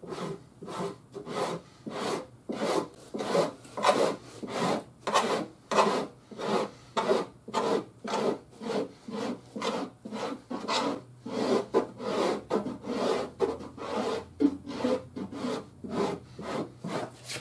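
Stanley Surform cheese grater blade rasping across body filler on a car fender in repeated strokes, about two a second.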